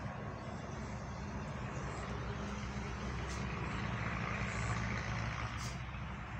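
An engine running steadily nearby: a constant low hum under an even hiss, with no change in speed.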